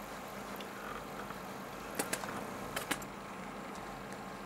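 Steady low background hum with a few light clicks and taps, two about two seconds in and two more near three seconds, as a kitten bumps and rubs against the camera.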